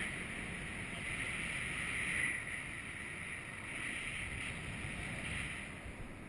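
Wind rushing over the camera's microphone in free flight: a steady rush with a hiss that swells and fades every second or two, easing off near the end.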